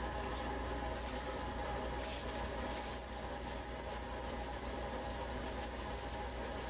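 A steady low hum, with a faint rustle of dry potassium nitrate crystals sliding through a glass funnel into a glass flask.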